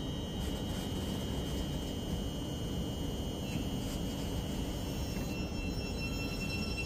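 Thameslink Class 700 electric train at the platform: a steady low rumble with a faint, steady high whine over it.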